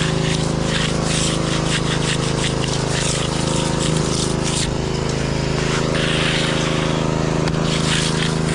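Small engine running steadily at constant speed, a continuous hum with a low pitched drone.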